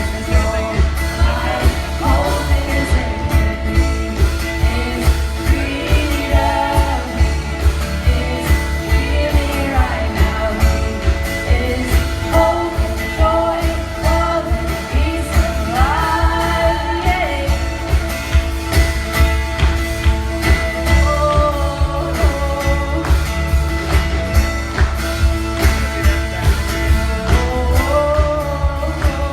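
Worship band playing with singing over a steady beat.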